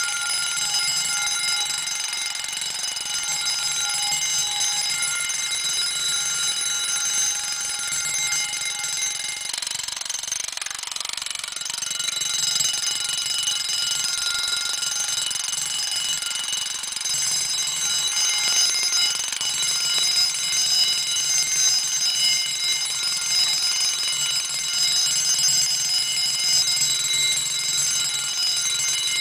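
Emdeko model 115-A spring-wound heat detector bell ringing continuously: its clapper strikes the 6½-inch metal gong, giving a loud, steady, high metallic ring with many overtones.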